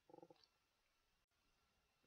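Near silence: faint room tone, with a very faint short tone just after the start.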